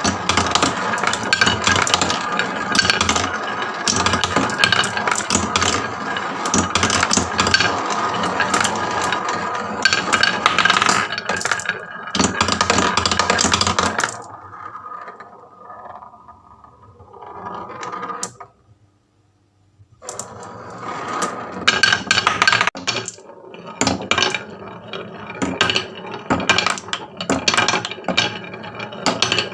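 Many marbles rolling and clacking down HABA wooden marble-run slopes in a dense, continuous rattle of clicks. About halfway through it thins out and stops for a moment, then the clattering starts up again.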